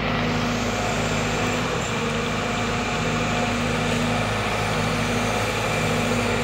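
Sumitomo SH210 hydraulic excavator's diesel engine running steadily, a constant engine rumble.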